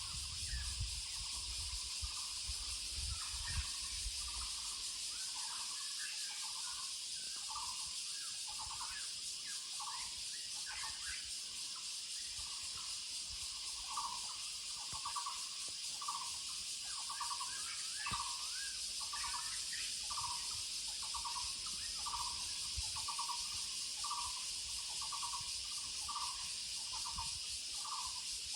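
Taiwan barbet (Muller's barbet) calling: a long run of low, rapidly trilled notes repeated about once a second, more steady and regular in the second half. Other birds chirp higher above it now and then, over a steady high hiss.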